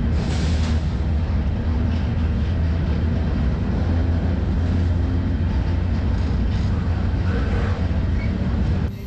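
Intermodal freight train rolling, heard from inside the well of a well car: a steady, loud, low rumble of wheels on rail with noise spread across the range. It cuts off abruptly near the end.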